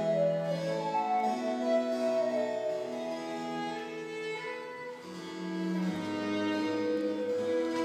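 Chamber music on recorder, violin, cello and harpsichord, played together in sustained melodic lines over a bowed bass.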